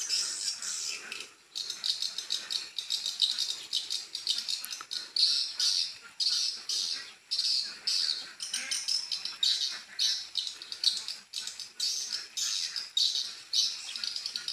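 Swiftlet calls: rapid, high-pitched twittering chirps in short bursts that repeat several times a second. This is the 'screaming' call sound used to lure swiftlets to a nesting house.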